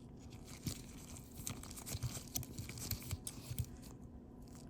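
Small irregular clicks and light rattles of an ignition lock housing and its parts being handled and turned over on a workbench.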